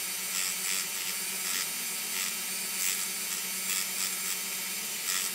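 Rotary tool with a thin cut-off disc running steadily and cutting into a diecast metal truck body, its motor hum under a gritty hiss that swells each time the disc bites into the metal.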